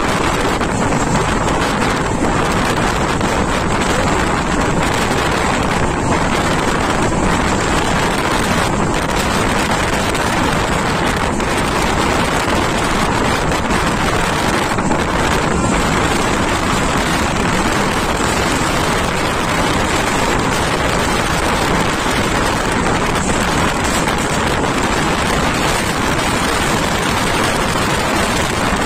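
Steady running noise of a moving train heard from on board, with heavy wind buffeting the microphone.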